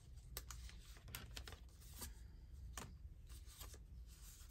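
Faint handling of paper: scattered light clicks and rustles as journal pages and paper pieces are moved about.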